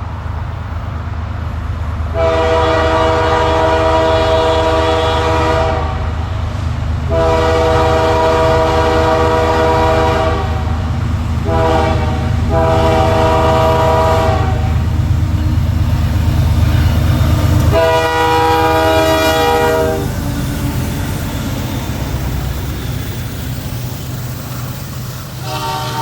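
Freight diesel locomotive's multi-chime air horn, on CP 8793, a GE ES44AC, sounding the grade-crossing signal: long, long, short, long. A further long blast drops in pitch as the locomotive passes, over the loud rumble of the diesel locomotives and the train, and the horn starts again near the end.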